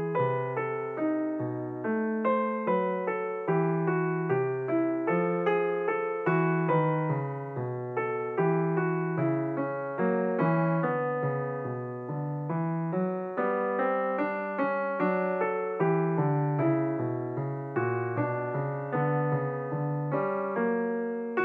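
Background music: a piano or electric piano playing a steady run of notes.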